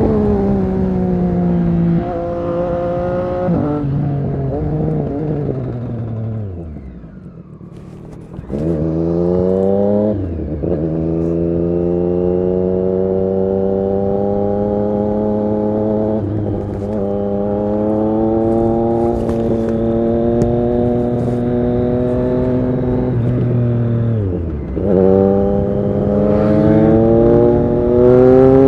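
Triumph Street Triple RS 765's three-cylinder engine through an SC-Project S1 exhaust, under way. The revs fall off and drop to a quiet low about seven seconds in, then climb sharply with an upshift, hold a steady cruise, ease off once more and rise again near the end.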